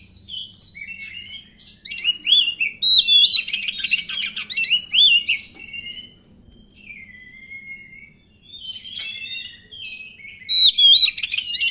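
Oriental magpie-robin (black Kacer) singing a fast, varied song of clear whistles and chattering phrases with quick rising and falling notes. It comes in loud runs, with a softer, longer whistle in the middle.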